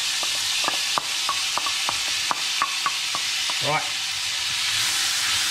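Freshly added chopped onion sizzling in hot vegetable oil with cumin seeds in a stainless steel pan, a steady hiss, with a dozen or so sharp taps of a wooden spatula against the pan and the bowl.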